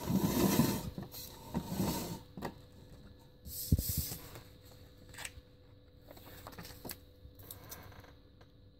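Handling noise from a man working on a motorcycle wheel rim and its vinyl stripe: rustling rubs and scrapes at the start and again around two seconds, a single thump near four seconds in, then a few light clicks and a softer rustle.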